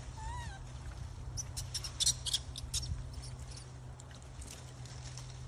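A young macaque gives a short call that rises and falls, just after the start. About a second and a half in comes a quick run of short, high squeaks and chirps, all over a steady low background hum.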